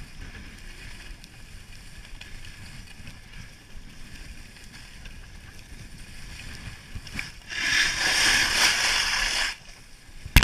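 Skis running over groomed snow, a steady rumbling hiss with wind on the microphone. About seven and a half seconds in, a much louder scraping hiss for about two seconds that cuts off abruptly, as the skis carve hard, then a sharp knock near the end.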